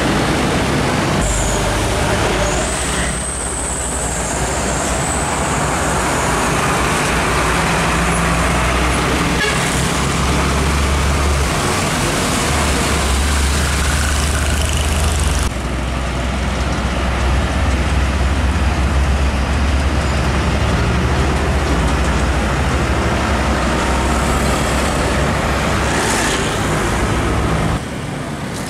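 Heavy diesel trucks passing close by on a busy road, their engines running with a deep steady drone over dense traffic noise. A high wavering squeal sounds a few seconds in, and the sound changes abruptly about halfway through and again near the end.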